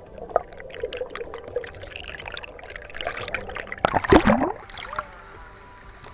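Water splashing and sloshing in irregular bursts, with the loudest splashes about four seconds in.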